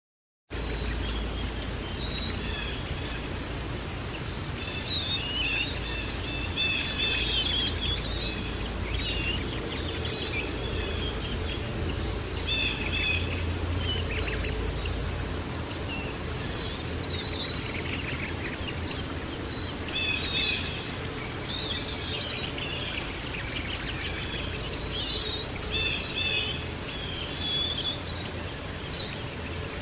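Many birds chirping and trilling over a steady background rush with a low rumble, the whole soundscape starting abruptly about half a second in.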